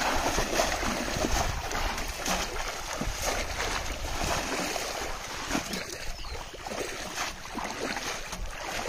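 Water splashing and sloshing as a person wades quickly through thigh-deep pond water, with many short, irregular splashes.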